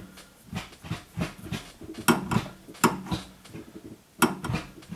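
Gear lever of a newly fitted short shifter in a 1994 Saab 9000 being rowed through the gears: a series of sharp clicks and clunks at irregular intervals, as the lever snaps into each gate.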